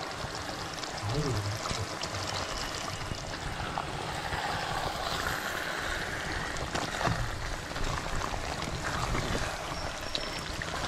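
Chicken simmering and bubbling in its own released juices in an uncovered clay pot, with a ladle stirring it and knocking against the pot a few times.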